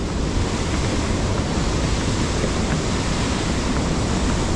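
Waterfall close by: a steady, loud rush of falling water.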